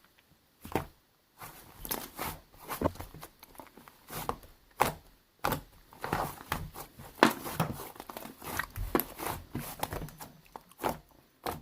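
Slime being squeezed and stretched by hand, making a stream of irregular sticky clicks and pops.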